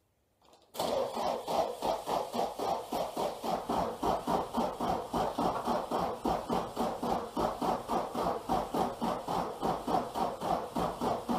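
Nissan SR20DET four-cylinder being turned over by its starter motor, an even rhythmic churn of about three to four compression pulses a second that starts suddenly about a second in. The engine cranks without firing.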